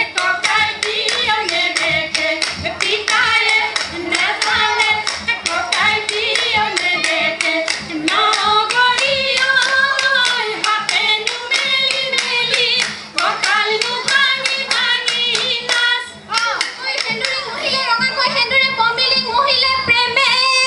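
Women singing a Jeng Bihu song together over fast, steady hand clapping.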